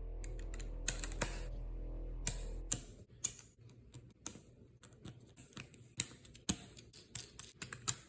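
Plastic Lego bricks clicking and snapping as they are handled, in sharp, irregular clicks. A low hum underneath stops about three seconds in.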